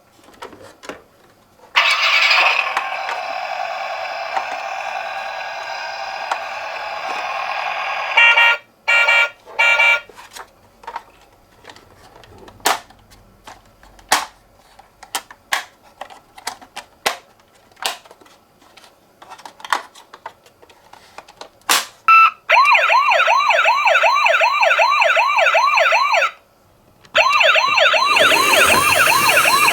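Toy ambulance minicars' electronic sirens. A steady several-toned siren sounds for about six seconds, followed by three short beeps. Then comes a stretch of scattered sharp clicks and taps, and from about 22 seconds a fast up-and-down wailing siren, which breaks off briefly and starts again near the end.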